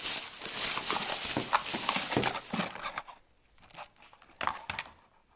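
Tools and plumbing fittings being handled: a dense run of knocks and rattles for about three seconds, then a few separate clicks.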